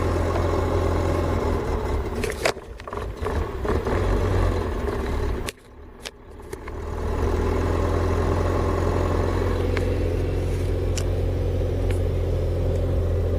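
UAZ Patriot's ZMZ-409 four-cylinder petrol engine idling steadily, with a few sharp clicks. The sound drops away for about a second, a little past five seconds in, then comes back up.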